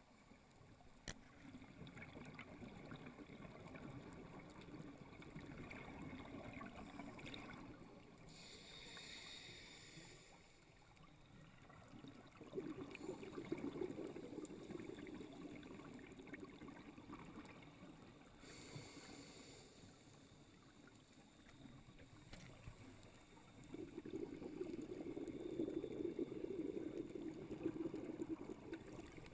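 Scuba diver breathing through a regulator underwater: twice a short hissing inhalation, followed by a longer, louder rush of exhaled bubbles.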